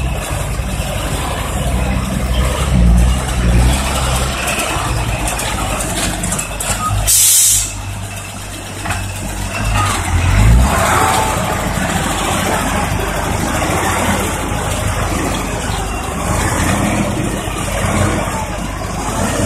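Mitsubishi Fuso ten-wheel dump truck's diesel engine running as the truck manoeuvres, with a short hiss of compressed air from the air brakes about seven seconds in.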